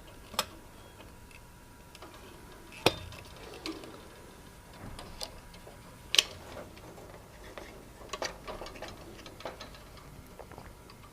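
Scattered sharp clicks and light taps, a few seconds apart with the loudest about six seconds in: the wire connectors being pushed onto the terminals of a new hot plate element under a ceramic hob top.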